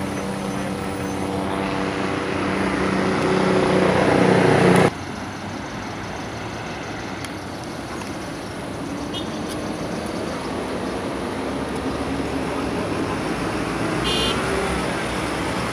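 Road traffic passing at a busy junction. A vehicle engine's steady hum grows louder over the first few seconds and cuts off suddenly about five seconds in, leaving a steady wash of traffic and tyre noise.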